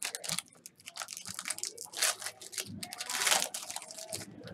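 Foil trading-card pack wrapper crinkling and tearing as it is ripped open by hand: a quick run of sharp crackles, loudest in a longer rip about three seconds in.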